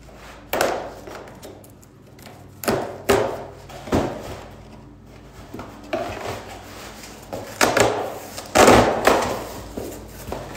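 Knife cutting through packing tape and cardboard along the seams of a large cardboard shipping box, in a series of short scraping strokes, with a longer, louder rasp about nine seconds in as the box is pulled open.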